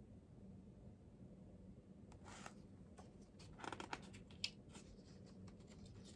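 Picture book's paper pages rustling faintly as they are turned, with a few light clicks and brushes of the paper, starting about two seconds in after near silence.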